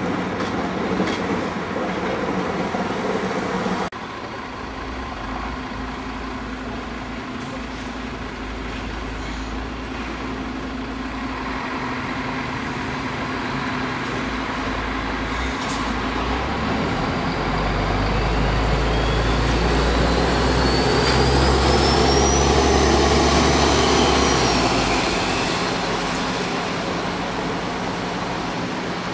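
Street noise, then a large vehicle's low rumble builds up, loudest about three-quarters of the way through, with a whine rising in pitch, before it fades away.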